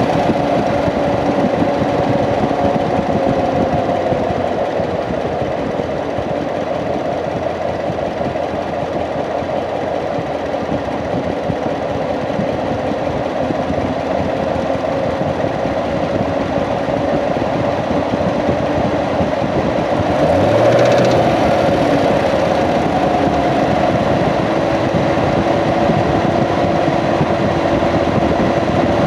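2016 Corvette C7's 6.2-litre LT1 V8 running at idle, heard close-up from inside the engine bay, with a brief rise in engine speed about two-thirds of the way in. Somewhere in it is a mystery noise that a new belt tensioner has not cured; the owner suspects the fuel pump or a fuel line.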